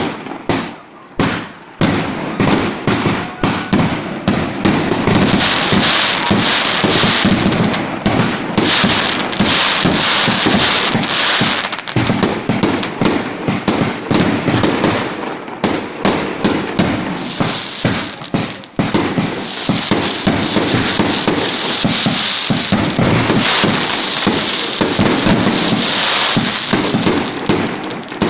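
Fireworks display going off in a rapid, continuous volley of bangs and crackling, with two short lulls: one near the middle and one about two thirds of the way through.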